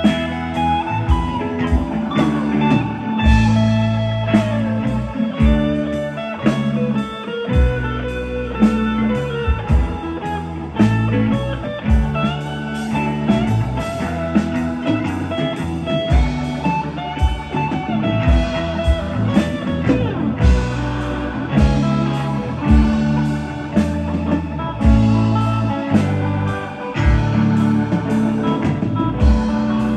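Live rock band playing a blues-tinged instrumental passage: a lead electric guitar with bending notes over bass, drums and keyboards.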